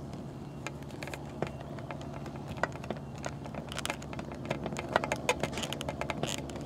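Scattered, irregular small clicks and creaks of a soft, rubbery plastic dinosaur figure being squeezed and worked by hand as its tail peg is forced against the body socket, over a faint low steady hum.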